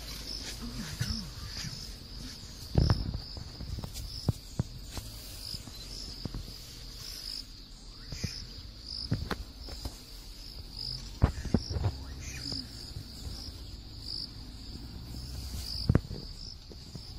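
Insects shrilling steadily at a high pitch, pulsing at a regular beat, over a low rumble. A handful of sharp knocks stand out as the loudest sounds.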